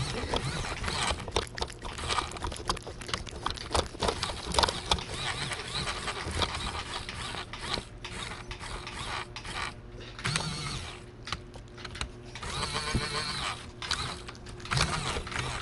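Rapid, irregular clicking and rattling of a plastic radio-controlled forklift and the camera mounted on it, jostled close up as several cats push against it and lick treat paste from it.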